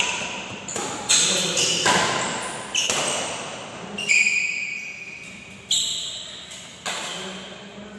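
Badminton rackets striking the shuttlecock in a doubles rally: about nine sharp smacks, spaced irregularly, each ringing out in the echoing hall.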